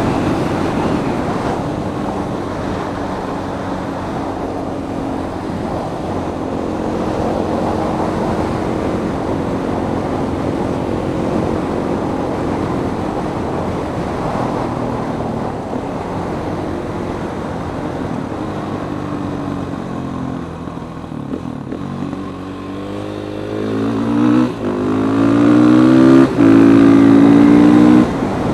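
KTM supermoto engine running steadily at road speed under rushing wind. Near the end it accelerates hard, the revs climbing and dropping back at each upshift.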